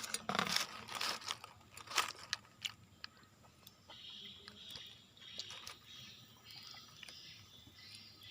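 A person eating, close to the microphone: several crunchy bites and chewing in the first few seconds, then quieter chewing.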